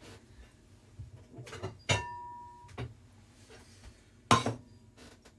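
Metal cookware being handled: a sharp clank about two seconds in that rings briefly, another knock a little after four seconds, and lighter clicks and taps between.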